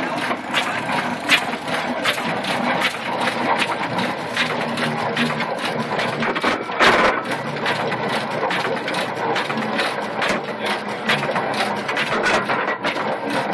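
Road roller's engine running with a rhythmic mechanical clatter of about three knocks a second.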